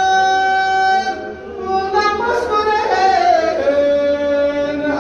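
A man's solo voice chanting a marsiya, an elegy for Ashura, into a microphone. He holds a long note for about a second, then his voice dips briefly and glides down to a lower held note near the end.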